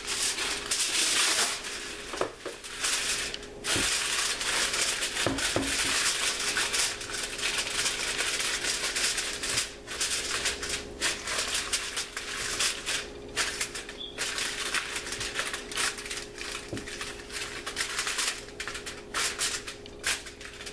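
Aluminum foil crinkling and rustling as a sheet of it is pressed and crimped down over a pan, in irregular crackling stretches broken by brief pauses.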